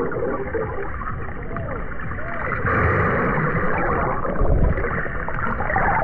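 Water sloshing and splashing close around the camera microphone, a continuous churning noise, with a few short muffled voice-like glides.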